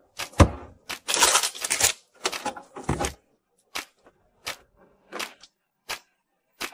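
Close-up kitchen handling sounds: a heavy knock as a metal moka pot is set down on an electric hot plate, a short crunchy, rustling stretch, then light clinks, about one every 0.7 s, of ice in a glass being stirred.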